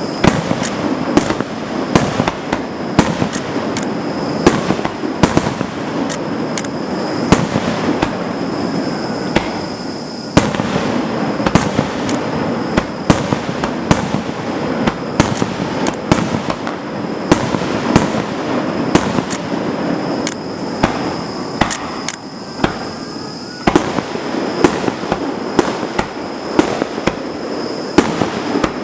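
Fireworks display: a dense run of sharp bangs and crackling bursts, often several a second, over a continuous rumble of explosions, with a thin steady high tone running underneath.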